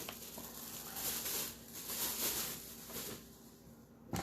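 A trading-card box's packaging being torn open, with crinkling and rustling in several bursts and a short sharp click near the end.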